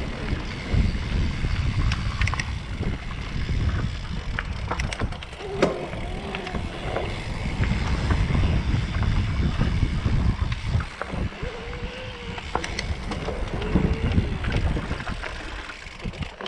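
Mountain bike riding down a dirt singletrack: wind rumbling on the action camera's microphone, with clicks and rattles from the bike over the rough trail.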